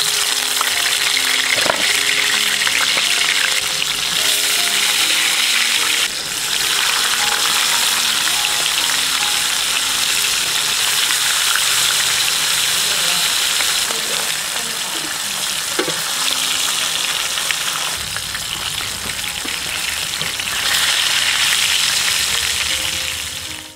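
Whole climbing perch (koi fish) frying in hot oil in a pan: a loud, steady sizzle that dips briefly about six seconds in.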